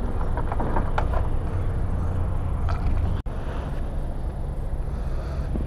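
Steady low outdoor rumble, with faint rustles and small clicks as riding gloves are pulled off. The sound breaks off for an instant about three seconds in.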